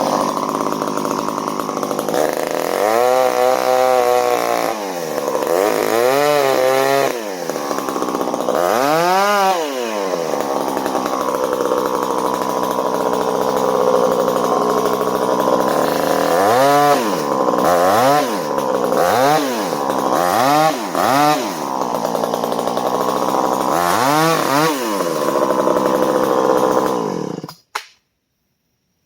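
Two-stroke chainsaw running, its engine revved up and dropping back about ten times, in quick succession around the middle. The sound cuts off abruptly near the end.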